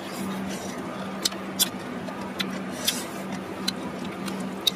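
Eating sounds at a table of oysters and salted crab: about six sharp, separate clicks and taps from chopsticks, shells and mouths, over a steady low hum.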